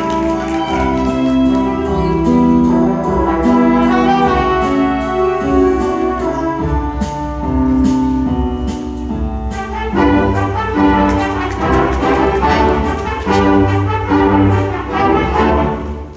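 Wind ensemble playing, with brass to the fore in sustained chords. The sound drops away sharply right at the end.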